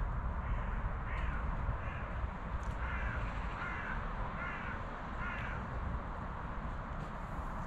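A crow cawing, about six short harsh calls in a row that stop about five and a half seconds in, over a steady low rumble.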